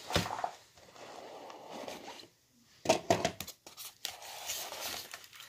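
Handling noise from a cardboard model-train box and its styrofoam tray: scraping and crinkling, with sharp knocks and clatter about a quarter second in and again around three seconds in.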